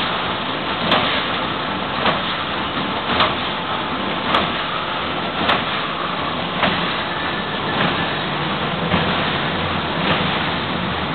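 Wire-mesh welding machine cycling: a sharp clunk about once every second over a steady machine-room noise.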